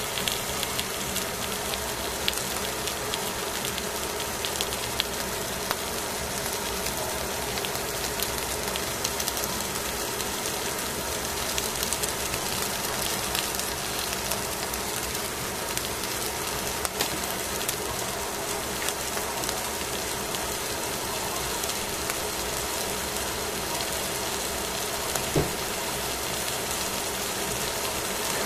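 Whole sardines sizzling on aluminium foil in a pan: a steady hiss dotted with frequent small crackles and pops of spitting fat and juices. One short louder knock near the end.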